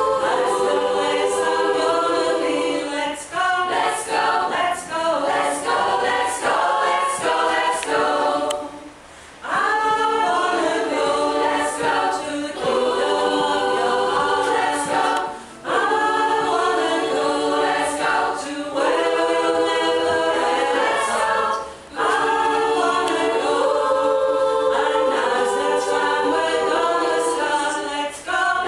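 Choir singing a cappella in long phrases, with brief pauses between them.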